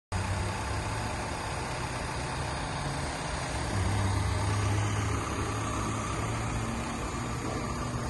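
VW Crafter panel van's 2.0 TDI four-cylinder diesel engine idling with a steady low hum, which gets louder for a couple of seconds from about four seconds in.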